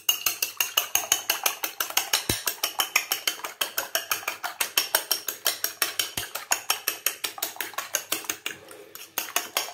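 Metal fork beating eggs in a ceramic bowl, its tines clicking against the bowl about six times a second in a fast, even rhythm, with a brief pause near the end before the beating resumes.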